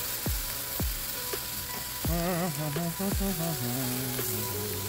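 Chicken sizzling on a charcoal grill grate, a steady crackling hiss. Background music plays over it: deep bass drum hits that drop in pitch, roughly twice a second, and a wavering melody that comes in about two seconds in and settles into held low notes.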